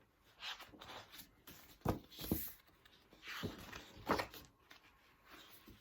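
Handling noise: soft rustling with a few short knocks, the sharpest about two seconds and four seconds in.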